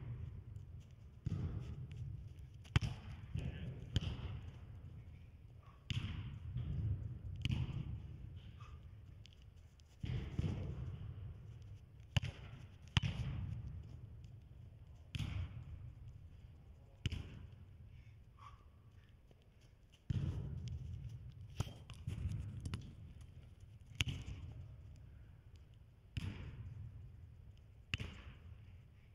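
Soccer ball being struck and controlled on artificial turf: sharp thuds at an uneven pace, about one every one to two seconds, each echoing in a large indoor hall.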